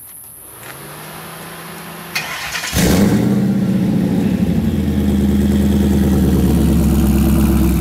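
Whipple-supercharged Ford SVT Lightning V8 being started: after a low hum, a brief crank about two seconds in, the engine catches just under three seconds in and settles into a loud, steady idle.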